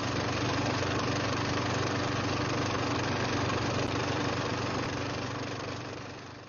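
An engine-like drone running steadily with a low hum. It fades out near the end.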